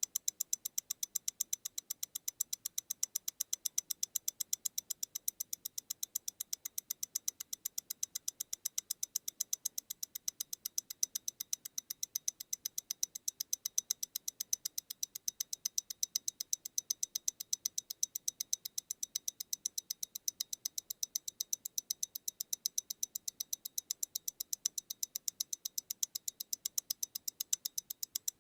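MEMORIGIN Stellar tourbillon wristwatch's mechanical movement ticking close up, a fast, even train of sharp, high ticks at its beat rate of 28,800 vibrations per hour, eight ticks a second.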